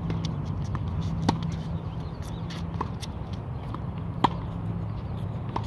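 Tennis ball struck by a racket in a rally: two sharp pops about three seconds apart, the second as a forehand is hit, with fainter ticks between them over a steady low hum.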